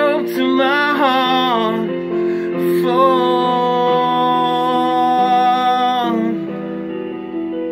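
A man singing along to a piano backing track. His voice bends through a phrase, then holds one long note until about six seconds in, and the piano carries on alone near the end.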